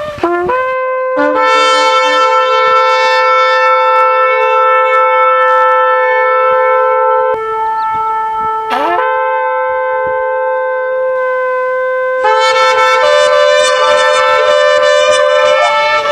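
Shofar blown in long, held blasts with brief breaks between them and a short upward squeal about nine seconds in; at times a second horn sounds at a different pitch alongside.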